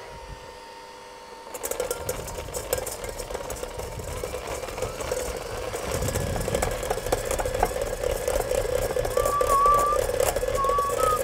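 KitchenAid electric hand mixer switched on about a second and a half in, its motor running steadily while the wire beaters beat softened butter and tick against the stainless steel bowl. It gets louder toward the end.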